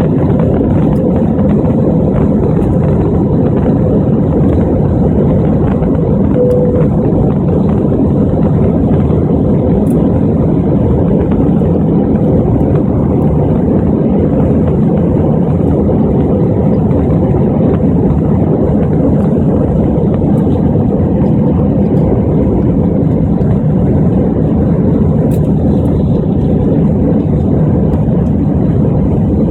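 Airbus A320-200 jet airliner heard from inside the cabin: a loud, steady rush of engine and airflow noise that holds its level without rising or falling.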